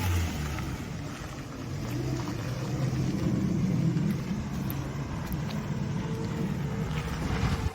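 1995 Subaru Sambar 4x4 mini truck driving, its small 660 cc four-cylinder engine running steadily under a low rumble of road noise.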